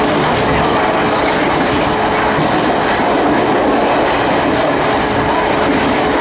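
London Underground A Stock train running, heard from on board: a steady rumble of wheels on rail with a thin, steady tone running through it.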